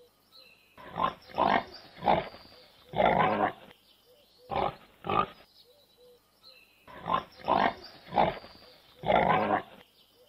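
Pigs grunting in short separate grunts, each run ending in one longer, drawn-out grunt; the same run repeats about every six seconds.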